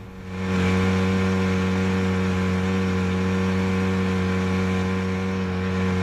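Small motorboat's engine running at a steady speed. It cuts in sharply about half a second in and holds an even pitch.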